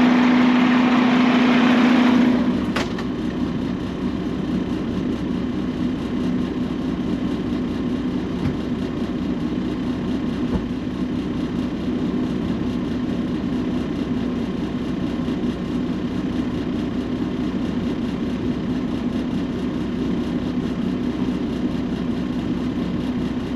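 Garbage truck engine idling steadily, a constant hum with a low steady tone. It is louder and hissier for the first couple of seconds, then settles, with a single click about three seconds in.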